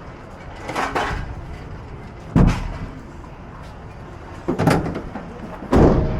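Four sharp thuds and knocks, the loudest about two and a half seconds in and near the end: a cargo van's doors being shut after loading.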